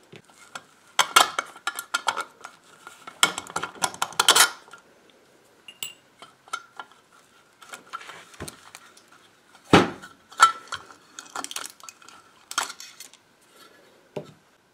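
Irregular metallic clinks, knocks and scrapes as a tube-amplifier power transformer's steel end-bell cover is worked loose and pulled off, with small metal parts knocking against it. The sharpest knock comes about ten seconds in.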